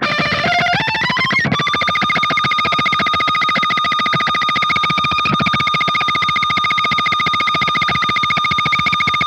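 Kramer Nite V electric guitar with EMG pickups and Ernie Ball Paradigm strings, high-gain distorted: a note slides up over about a second and a half into one high note, which is then picked very fast and held with a slight waver.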